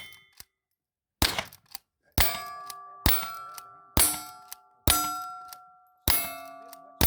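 A string of gunshots on steel targets, about one a second, each hit followed by the steel plates ringing as the tone dies away.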